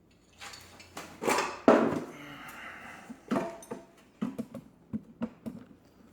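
A jack being let down from under a Kawasaki Z125 Pro motorcycle: metal clanks and clatter with a short rushing noise about two seconds in, then a run of sharp knocks.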